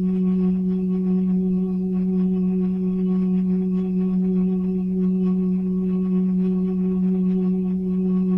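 Tornado siren sounding a steady, unchanging low tone with overtones.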